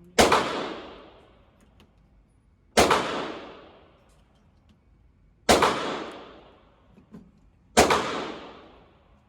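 Four gunshots fired at a steady pace, about two and a half seconds apart. Each shot cracks sharply and then dies away in a long echoing tail.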